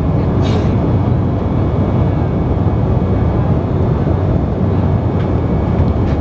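Steady in-flight cabin noise of an Embraer 190 airliner: the low drone of its GE CF34 turbofan engines and rushing air, heaviest in the low end and unbroken throughout.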